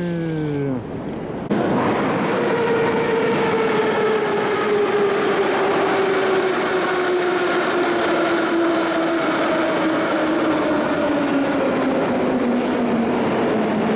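Moscow metro train pulling into the station, with the rumble of its wheels and a whine that falls slowly in pitch as the train slows, starting about a second and a half in.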